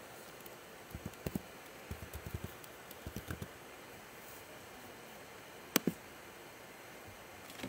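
Scattered light clicks and taps over a steady low hiss, with one sharp click just before six seconds in.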